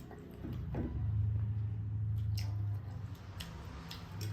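Eating sounds close to the microphone: chewing with a few sharp clicks, and a low steady hum from about one second in until nearly three seconds in.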